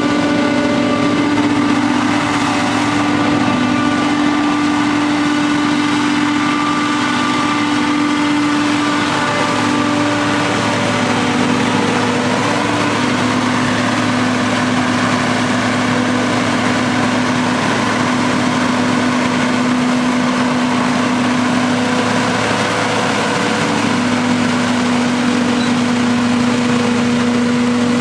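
Forage-harvesting machinery running steadily: a diesel engine hum with a steady whine on top, its pitch shifting a little every few seconds.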